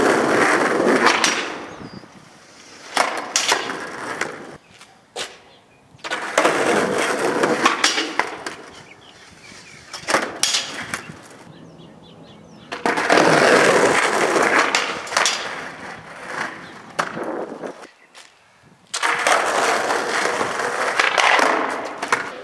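Skateboard wheels rolling on concrete in about five separate runs of a few seconds each, with sharp clacks of the board striking the ground. The rolling echoes off the walls of a concrete underpass.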